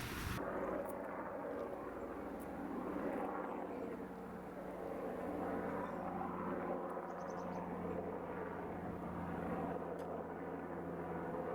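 Kubota BX sub-compact tractor's diesel engine running steadily.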